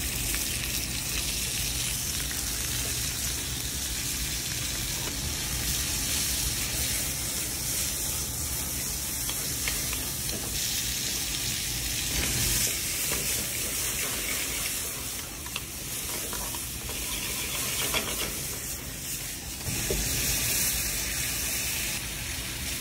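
Diced beef sizzling as it sears in a hot skillet over a gas burner, a steady frying hiss. Near the end a ladle of sauce goes into the pan and the sizzle grows louder.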